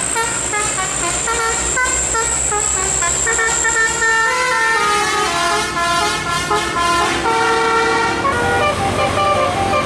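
Bus telolet multi-tone air horn of the Basuri type, playing a quick melody of changing notes over the bus's engine rumble.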